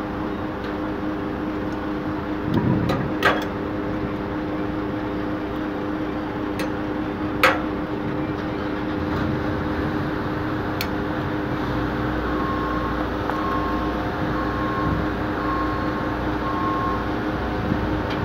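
Diesel engine of a 50-ton truck crane running steadily while it hoists a steel beam, with two sharp metallic knocks in the first half. Later, a short beep starts repeating about once a second, like a machine's motion alarm.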